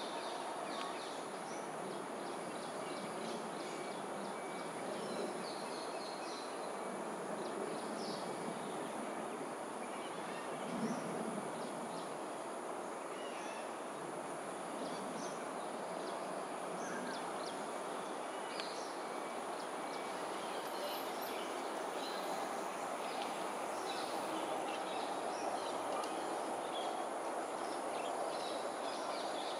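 Outdoor ambience: a steady background hum, with many short high chirps from small birds scattered through it and a steady high insect drone.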